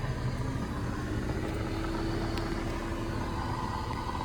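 A car's engine running steadily, with a steady low rumble and a faint tone that comes in about half a second in and rises slightly.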